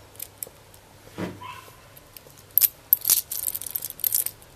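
Handling noise of a stainless steel watch and its box: the bracelet links clink and the plastic box insert clicks and rustles in a dense cluster in the second half, after a brief pitched sound about a second in.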